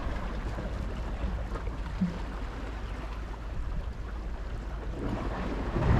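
Steady low rumble of wind and sea surf, with no distinct events.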